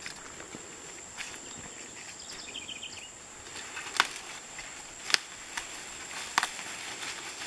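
Ears of green corn being snapped off their stalks by hand: three sharp cracks in the second half, with lighter rustling of corn leaves and steps before them.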